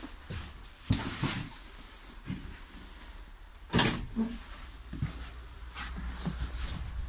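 Knocks and clatter as someone moves about in a bus's driver's cab, over a steady low rumble. A single sharp bang about four seconds in is the loudest, with smaller thumps about a second in and near five seconds.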